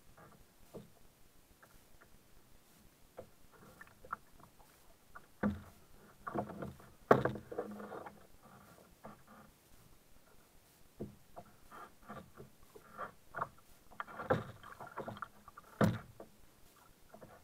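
Double-bladed kayak paddle dipping and pulling through the water, splashing and dripping in an irregular rhythm. A few sharp knocks cut through, the loudest about seven seconds in and again near the end.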